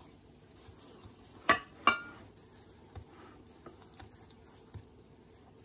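Glass mixing bowl clinking twice, sharply and with a short ring, about half a second apart, followed by a few fainter taps as a donut is handled in the cinnamon sugar in it.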